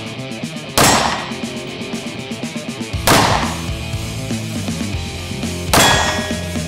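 Three shots from an IMI Desert Eagle pistol chambered in .357 Magnum, about two and a half seconds apart, each ringing out briefly. Background music plays under them.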